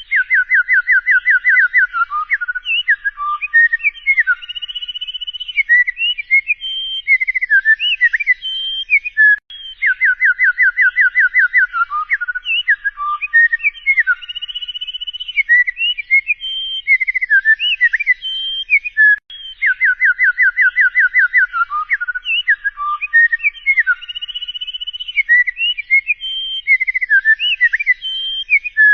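A songbird's whistled song: a fast run of about a dozen repeated notes, then a string of varied rising and falling whistles. The same phrase sequence repeats almost identically about every nine and a half seconds, as from a looped recording.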